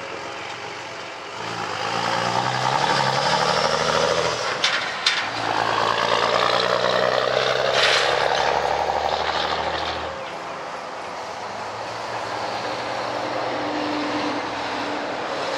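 A heavy truck passing nearby: its engine and tyre noise swell about a second in, hold with a couple of sharp knocks midway, and fade about ten seconds in. Beneath it, and after it fades, the steady rumble of the distant diesel locomotives of an approaching freight train.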